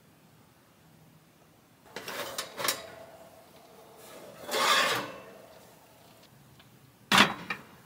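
Oven door of a small camper-van propane range opening and a casserole dish being dragged out over the metal oven rack with a rasping scrape, then a sharp knock near the end.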